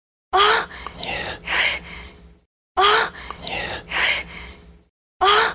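A woman's breathy gasp followed by a sighing moan, a short sultry vocal sound effect repeated three times, about every two and a half seconds. Each repeat opens with a sharp gasp that rises in pitch.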